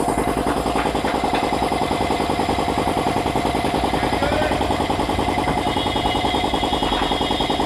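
3090 piston air compressor running steadily under test, its pump giving a rapid, even pulsing beat.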